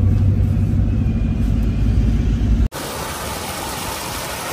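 Steady low engine and road rumble inside a moving vehicle's cabin. It cuts off abruptly about two and a half seconds in and gives way to the even splashing of fountain water jets.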